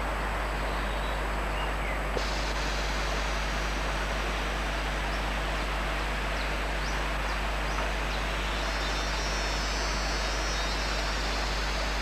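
Steady hiss with a constant low hum, the recording's own background noise. Faint short high chirps come in the middle, and a thin high buzz near the end.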